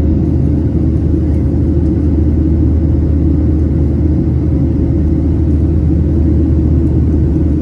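Steady in-cabin noise of a Boeing 737-800 in the climb after takeoff: a deep, even rumble from its CFM56-7B engines and the airflow, with a faint steady hum above it.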